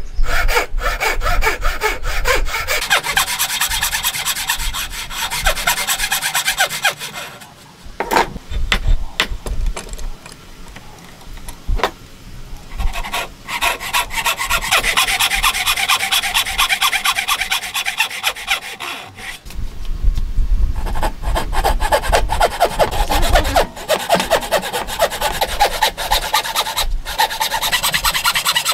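Fine-toothed hand saw cutting through a wooden block in quick, steady back-and-forth strokes, rasping through the grain. The sawing stops for a few seconds about a quarter of the way in, with a couple of knocks, then carries on.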